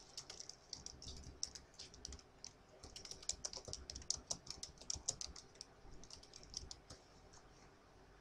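Typing on a computer keyboard: a quick run of keystrokes, densest in the middle and dying away near the end.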